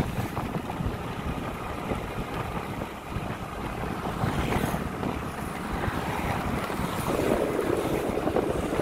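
Wind buffeting the microphone, with passing road traffic: a motorcycle goes by about halfway through and another vehicle grows louder near the end.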